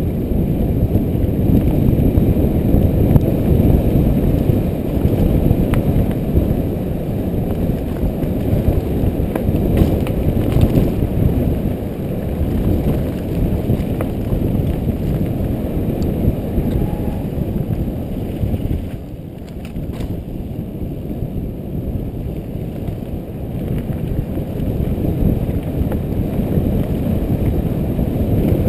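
Specialized Demo 8.1 downhill mountain bike riding fast down a dirt forest trail: a steady low rumble of wind buffeting the camera microphone and tyres on the dirt, with a few faint clicks from the bike. It eases off a little about two-thirds of the way through.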